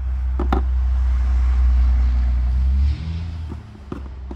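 Road traffic going past: a vehicle's low rumble swells and then drops off abruptly about three seconds in. A few sharp handling clicks come near the start and near the end.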